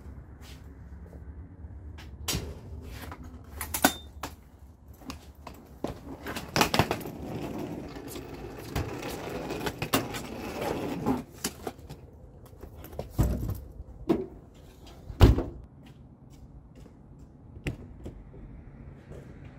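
A door being handled: a run of clicks, knocks and rattles from a latch and a metal security screen door, busiest in the middle, with one loud thump about fifteen seconds in.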